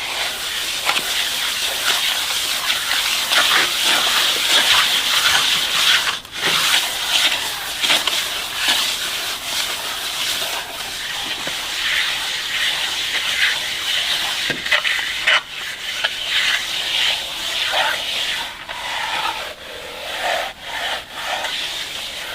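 Continuous scraping and rubbing of a hand tool worked back and forth over a rough surface, in quick, uneven strokes.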